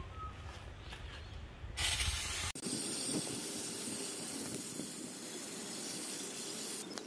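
Aerosol can of Liquid Moly diesel intake cleaner spraying into an intake manifold: a steady hiss that starts about two seconds in, breaks off briefly, then runs on to near the end.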